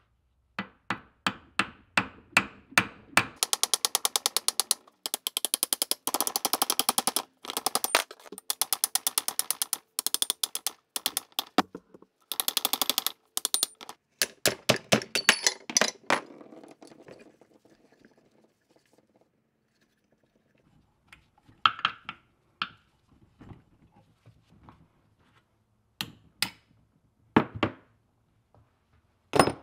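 Hammer striking a steel punch held against the rusty cast-iron body of an old Wright screw hoist, working seized parts loose during disassembly. The blows come in fast runs for about sixteen seconds, then a few scattered knocks follow near the end.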